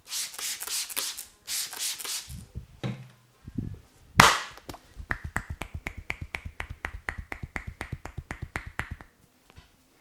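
Hands working a head massage: two bursts of rustling, crackling rubbing as the hair is rubbed and pulled, then one loud sharp slap about four seconds in. Rapid, even hand tapping on the head follows, about five beats a second, for some four seconds.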